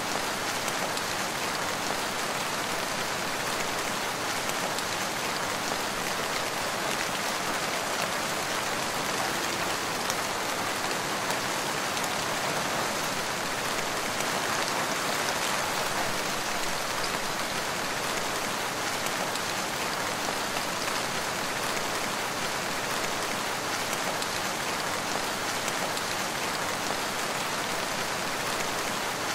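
Steady rain falling, an even hiss of many drops with no breaks or changes.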